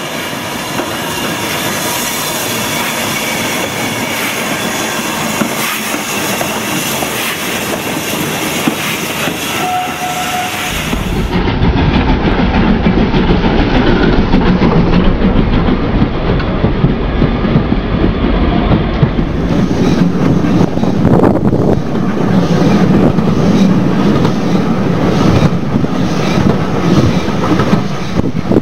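Model trains running on a layout's track: a steady rattle of wheels on the rails, turning into a louder, deeper rumble about ten seconds in.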